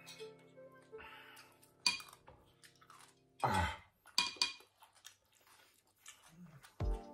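Spoons and forks clinking against ceramic bowls and plates, with chewing, during a meal. Soft background music plays underneath.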